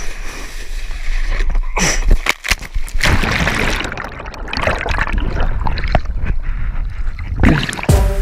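Wind buffeting an action camera's microphone while water rushes and splashes under a kiteboard skimming across choppy sea, with several louder splashes.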